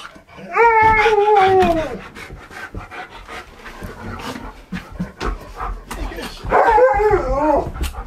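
Husky howling twice. A long howl starts about half a second in and drops in pitch at its end, and a shorter wavering howl comes near the end, with scattered clicks and scuffling between them.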